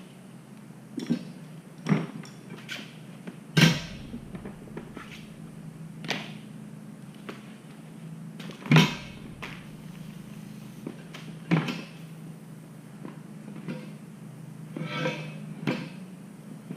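Irregular knocks and clanks of metal tools working a motorcycle tire off its rim, the loudest about a third of the way in and again near the middle, over a steady low hum.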